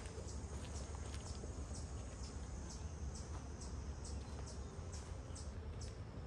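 Outdoor ambience at an open beehive: a steady low rumble, with a short, high, cricket-like insect chirp repeating about three times a second and getting louder near the end.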